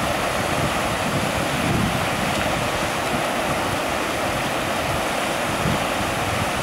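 Fast-flowing mountain stream rushing between snow banks: a steady, loud rush of water.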